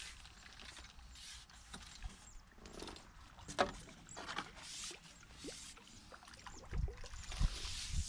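Scattered clicks and rustles of a fishing pole and tackle being handled while a small fish is played, with one sharp click about three and a half seconds in and a few low thumps near the end as the landing net comes out.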